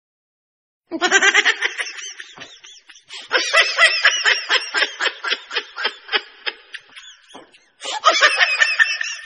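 High-pitched laughter in quick ha-ha pulses, starting about a second in. It comes in three runs, with short breaks near three seconds and near the end.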